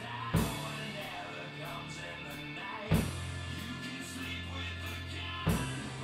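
Double-bass-drum kit played over a rock track with a sustained low bass line, with three heavy accented hits spaced about two and a half seconds apart.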